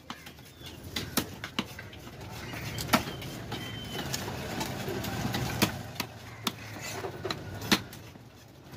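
Large knife chopping through fish on a wooden log block: about ten sharp, irregular chops. A low engine rumble in the background swells and fades in the middle.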